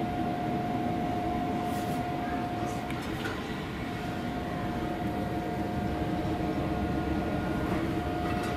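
Weber Smokefire EX6 pellet grill running: a steady fan hum with a constant high whine, with a few faint clicks about two and three seconds in.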